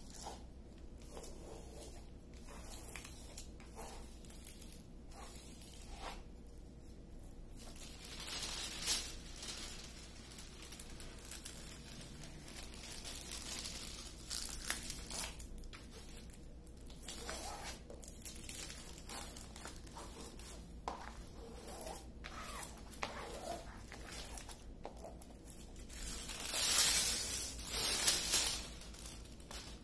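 Clear plastic cover sheet on a diamond-painting canvas crinkling and rustling as a wooden stick is scraped across it to smooth it flat and push out air bubbles. It comes in uneven spells, loudest for a couple of seconds near the end.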